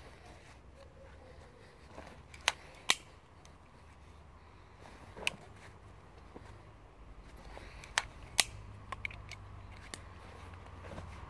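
Sharp clicks of a small knife being drawn from the waistband and handled: two close together about two and a half seconds in, one near the middle, two more about eight seconds in, then a few fainter ones.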